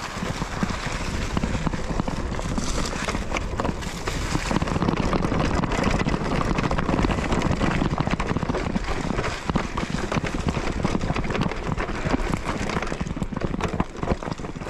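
Mountain bike riding over a rough, rocky trail: steady tyre and rolling noise with constant rattling and knocks from the bike, a little quieter near the end.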